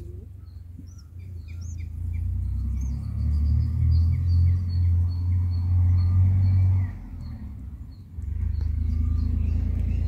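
Bulbul nestlings begging with rapid, high chirps, several a second, which fade out after about seven seconds. A louder low rumble runs beneath them, breaking off briefly around seven seconds and returning about a second later.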